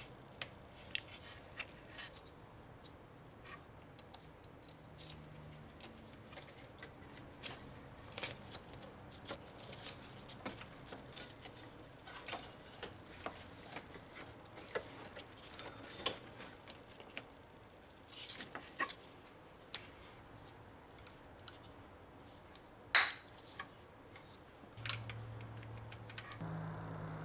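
Hand tools and metal parts clicking and clinking in irregular light taps, with one sharp, ringing metal clink late on.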